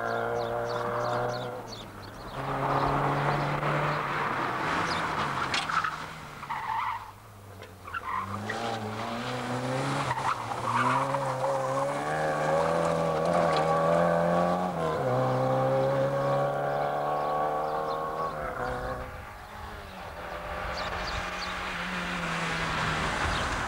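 Small rally hatchbacks driven hard: engines revving high, the note dropping back and climbing again with each gear change or lift, with tyres skidding on loose gravel.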